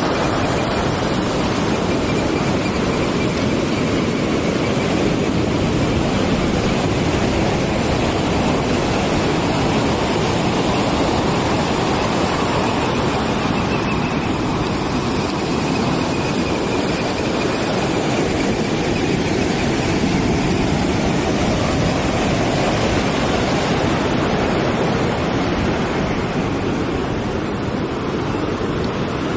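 Steady rushing roar of ocean surf on the coast, an even unbroken noise that swells gently now and then.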